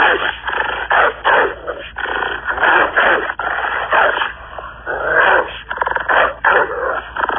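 Wolf growling in a loud, irregular run of rough bursts.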